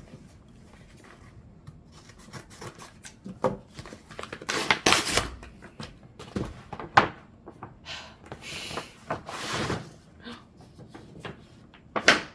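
Packaging and reusable shopping bags being opened and handled: irregular rustling and crinkling, with a few sharp knocks, the loudest near the end.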